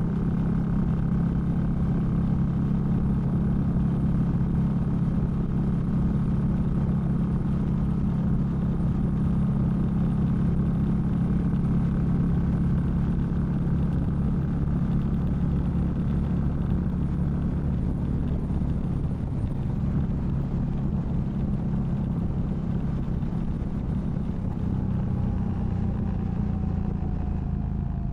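Indian Scout motorcycle's V-twin engine running steadily at road speed, picked up from inside a saddlebag so that there is little wind noise. It eases off slightly in the last few seconds.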